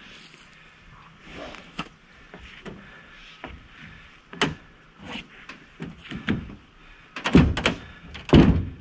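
Heavy timber posts and boards knocking and thudding against each other and the small truck's bed as a man climbs over the stacked load: scattered wooden knocks, then two heavy thuds about a second apart near the end.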